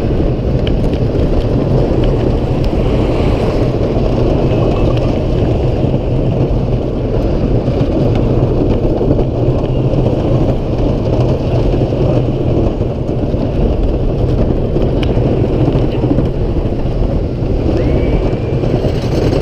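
Lightning Racer's wooden coaster train running along its wooden track, a loud, steady rumble of wheels on the track mixed with wind buffeting the on-ride camera's microphone.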